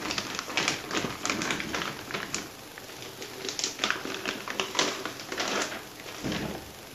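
Clear plastic bag crinkling and rustling in irregular crackly bursts as a computer case is slid out of it, with a brief low thump near the end.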